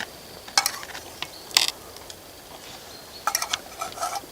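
Metal cookware and a utensil clinking and knocking: single sharp strikes about a second apart, then a quick cluster of clinks near the end.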